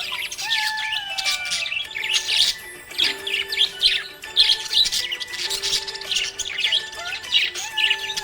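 Budgerigars chirping in a fast, continuous stream of short high chirps over background music with long held notes.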